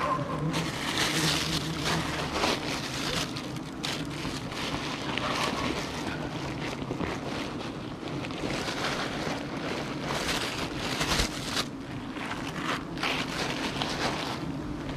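Wind noise on the microphone over the steady hum of a swarm of honeybees, with gloved hands and sleeves rubbing and scraping on the tree bark.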